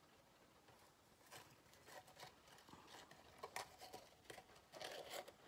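Faint handling noises of cardstock being worked by hand: light rustles and small clicks, starting about a second in and getting busier toward the end.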